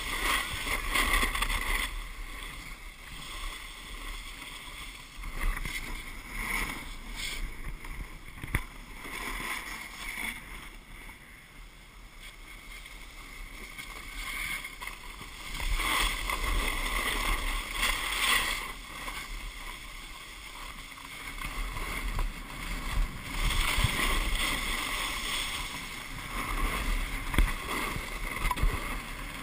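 Wind buffeting the microphone of an action camera carried by a snowboarder riding downhill, mixed with the hiss and scrape of the board on packed snow. It swells and fades as the rider speeds up, slows and turns.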